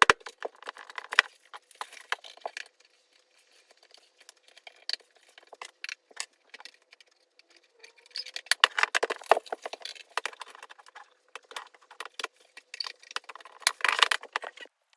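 Rapid clattering and clinking of small hard objects being handled, in three bouts with scattered single clicks between.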